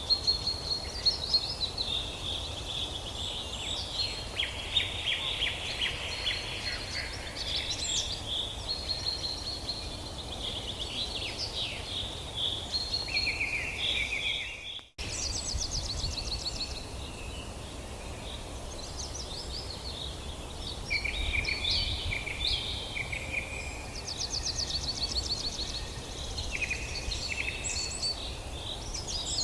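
Several forest songbirds singing and chirping in a chorus of short trills and rapid note series, over a steady low rumble. The sound cuts out for an instant a little past halfway, then the chorus carries on.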